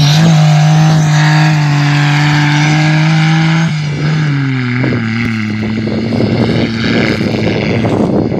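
Homemade buggy's 800cc Daewoo Tico three-cylinder engine running at high, steady revs. About four seconds in, the sound cuts to a lower steady hum with rough, gusty noise over it.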